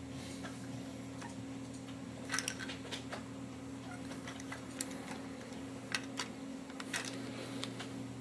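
Scattered light clicks and taps of a baby's toys being handled, the most coming in a quick cluster about two and a half seconds in, over a steady low electrical hum.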